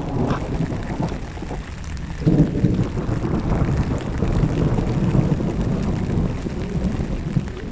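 Thunder rumbling over steady rain, swelling louder about two seconds in.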